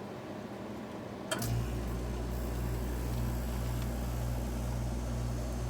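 1986 Carrier Siesta 51BT window air conditioner on low fan; a little over a second in, a click as the thermostat closes and its Matsushita (Panasonic) rotary compressor kicks on, then runs with a steady low hum.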